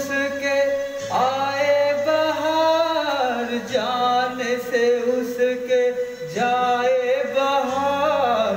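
A man singing long, drawn-out notes into a handheld microphone, several phrases in a row, over a steady low musical accompaniment.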